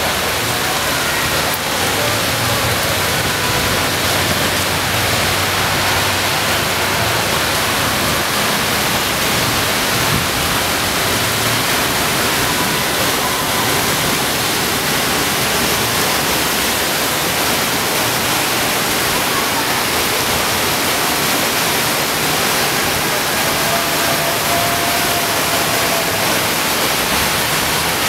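Heavy rain pouring down together with floodwater rushing along a flooded street: a loud, steady hiss.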